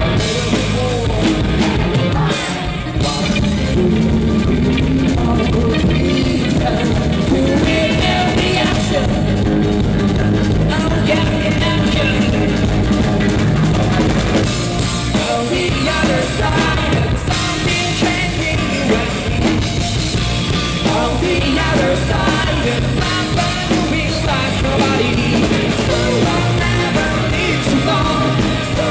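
Rock band playing live and loud, drum kit driving a steady beat under the instruments and voice.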